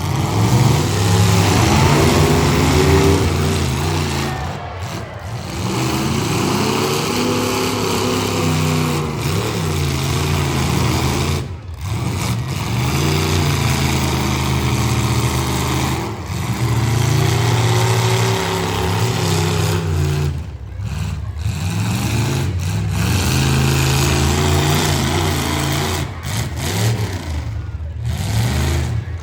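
Engines of full-size demolition derby cars revving hard, over and over, in repeated rising and falling surges.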